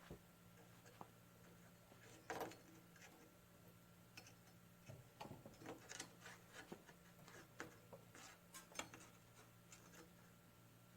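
Faint, scattered clicks and light taps of small hard objects being handled, irregular rather than rhythmic, over a steady low electrical hum.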